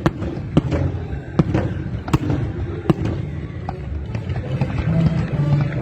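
Fireworks going off: several sharp bangs at irregular intervals over a low rumble, the loudest about two seconds in.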